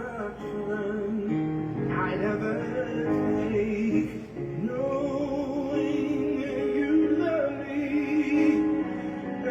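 Music: a singer holding wavering, vibrato notes over a guitar accompaniment.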